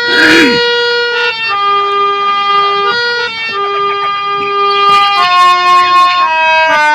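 Harmonium playing a slow melody of held notes, stepping from one note to the next every half second or so. A common myna gives a short harsh call right at the start, and a few brief chirps come later.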